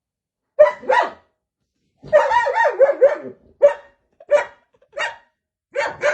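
A dog barking in short, separate barks, with a quick flurry of barks about two seconds in.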